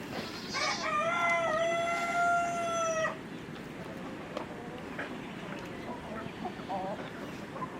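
A rooster crowing once, a single drawn-out call of about two and a half seconds, followed by faint short clucks from chickens.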